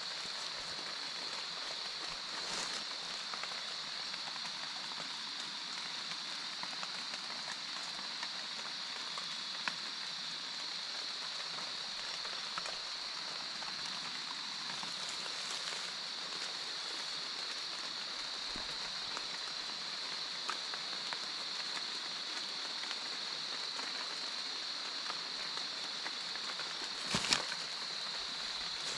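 Steady outdoor background in a forest: an even hiss with a constant high-pitched tone over it, a few faint ticks, and one sharper click near the end.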